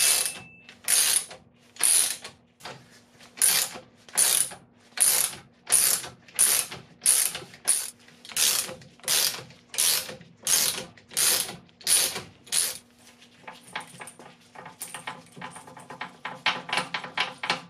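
Ratchet wrench clicking in repeated swings as it backs off the threaded rods of a pair of coil spring compressors, letting a car's strut spring extend. About two swings a second for most of the time, then quicker, lighter clicks near the end.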